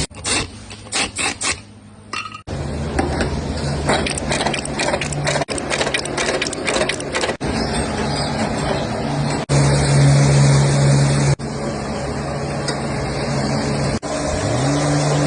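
Workshop machinery running: a steady electric-motor hum with rattling and knocking, broken by abrupt cuts between short clips. A string of separate knocks comes near the start, and a motor hum rises in pitch and settles near the end.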